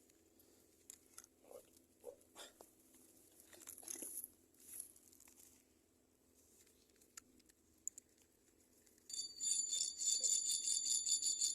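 Scattered light clicks and rustles of handling. About nine seconds in, a steady, evenly pulsing jingling of small bells starts and keeps going.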